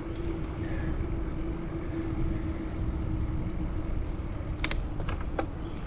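Bicycle rolling along a paved trail: wind rumble on the microphone and tyre noise with a steady hum, and a few sharp clicks near the end.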